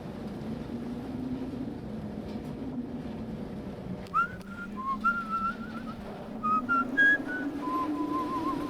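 A tune whistled over a steady low drone: the whistled notes begin about four seconds in, held one after another, and end on a wavering trill.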